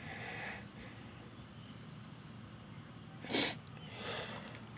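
A short, sharp breath noise from a person close to the microphone, about three and a half seconds in, with faint breathy hiss near the start and near the end.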